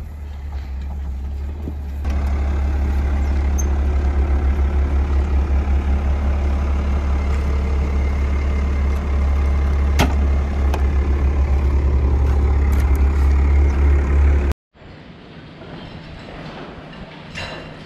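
Wheel loader's diesel engine running steadily with a low, pulsing rumble. About fifteen seconds in it cuts off abruptly, giving way to quieter barn ambience with a few scattered clicks.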